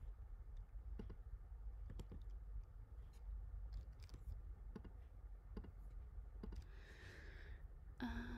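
Faint, scattered single clicks of a computer mouse, with the odd key tap, about one a second, over a steady low hum. There is a short soft hiss about seven seconds in, and a brief voice sound right at the end.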